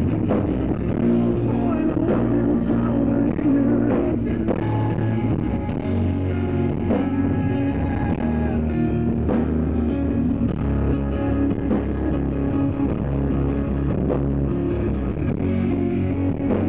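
Rock band playing live: guitars with bass and drums, with a singer's voice at times over the instruments.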